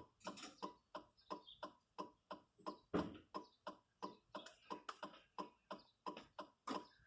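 Steady mechanical clicking, about three clicks a second, with one louder knock about three seconds in.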